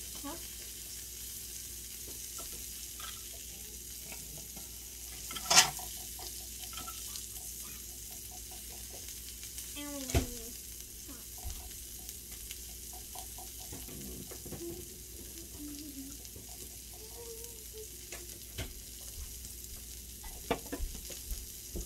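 Thin-sliced steak and asparagus sizzling steadily on a tabletop electric grill plate. A couple of sharp knocks sound over it, the loudest about five and a half seconds in, as utensils touch the grill or the dishes.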